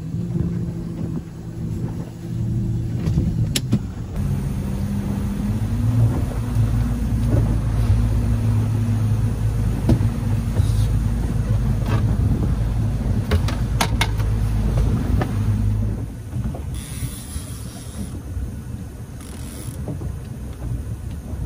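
Boat engine running under way. Its pitch rises a few seconds in as the throttle opens, holds steady, then the sound eases off in loudness near the end.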